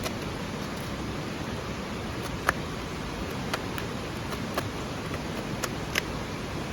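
Campfire crackling: a steady hiss with scattered sharp pops, the loudest about two and a half seconds in and another near six seconds.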